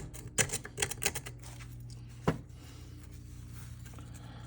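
Small metal parts and hand tools being handled on a workbench: a quick run of light clicks and taps, then one sharp click a little past two seconds, over a steady low hum.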